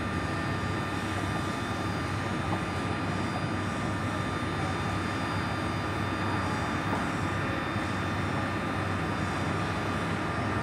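Alstom NS-93 metro train standing at a station platform, heard inside the driver's cab: a steady hum and hiss from its onboard equipment, with a thin steady whine above it.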